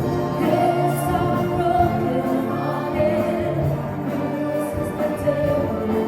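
Live ensemble music at a sound check: the band plays held notes and sustained chords at a steady level.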